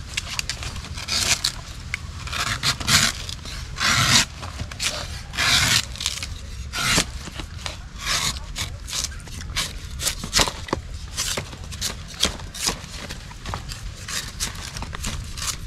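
Repeated scraping strokes on a coconut, irregular: a few longer scrapes in the first six seconds, then many quicker, shorter scrapes and clicks.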